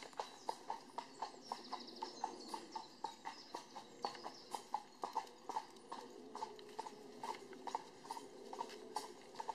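Carriage horse's hooves clip-clopping on a paved road at a steady trot, about three strikes a second, over a low steady rumble.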